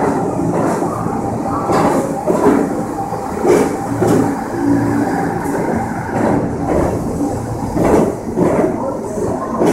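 R46 subway train departing the station, its cars running close past at gathering speed: steel wheels clacking repeatedly over rail joints over a steady low hum.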